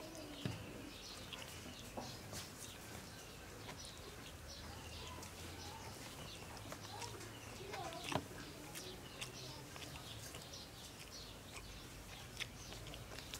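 Quiet outdoor birdsong, small birds chirping with a few cooing calls, over the occasional sharp click and smack of a man eating fish and rice with his fingers.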